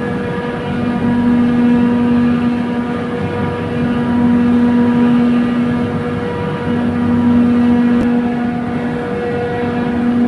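Loud, steady machinery hum with a strong low drone and higher tones above it, the low drone swelling and easing every couple of seconds, from equipment running in the chiller plant room.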